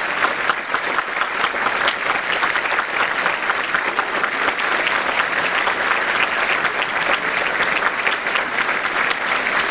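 Theatre audience applauding, a dense steady clapping of many hands.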